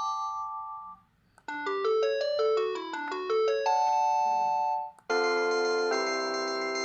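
Panasonic KX-PRS110 cordless phone playing its electronic ringtones one after another. A held chord ends about a second in. After a short gap and a click, a quick run of notes climbs and falls and settles into a held chord that cuts off suddenly. After another click, a different ringtone starts with sustained chords that change about a second later.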